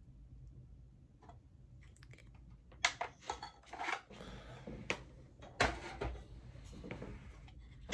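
Handling noise: a glass-topped kitchen scale and a metal-cased dock being picked up, moved and set down on a desk, a few light knocks and scrapes starting about three seconds in.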